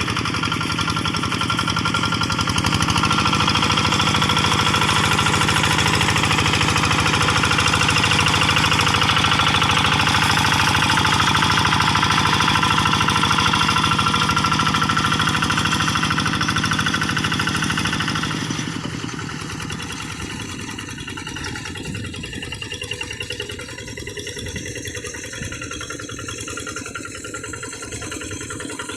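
Kubota RD85Di single-cylinder diesel engine of a hand tractor running steadily. It picks up speed and gets louder a few seconds in, then eases back and quietens about two-thirds of the way through.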